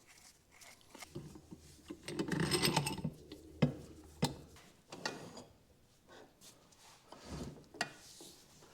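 Hand tools and sockets working on a steel trailing arm to push out a rubber bushing: several sharp metallic knocks and clinks, with a rubbing, scraping noise for a second or two early on.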